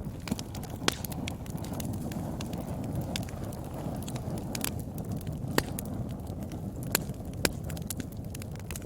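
Wood fire burning: a steady low rush of flames with irregular sharp crackles and pops, a few of them louder snaps.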